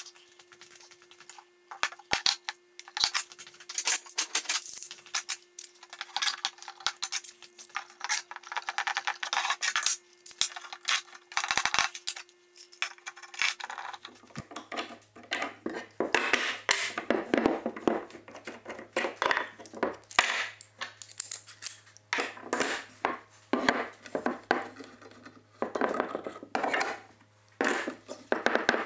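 Steel bar clamps being handled, slid and tightened around wooden parts on a workbench: irregular metal clinks, clicks and rattles with wooden knocks, coming in scattered bursts and busier in the second half.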